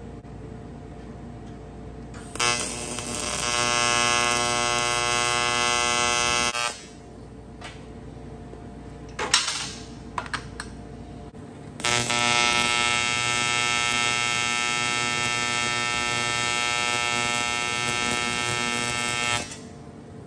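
AC TIG welding arc buzzing as aluminum gas-tank panels are tack welded, in two stretches of about four and seven seconds that start and stop sharply. A few clicks and knocks come in the gap between them.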